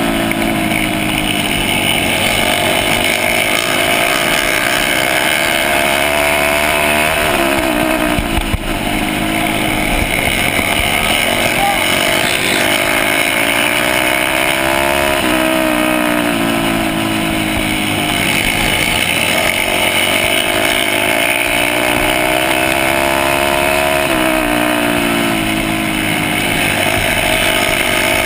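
Dirt bike engine racing around a flat-track oval, close to the microphone: the revs climb for several seconds down each straight and fall away into the turns, about three times.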